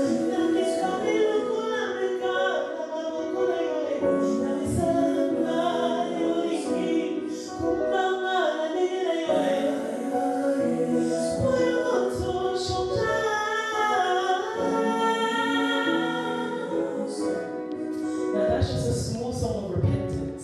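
A gospel song being sung, voices carrying a melody over musical accompaniment.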